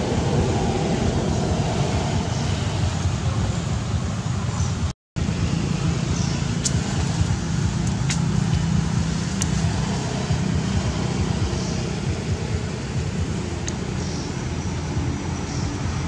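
Steady outdoor background noise, a low rumble with hiss over it, broken by a brief silent gap about five seconds in. A few faint clicks follow the gap.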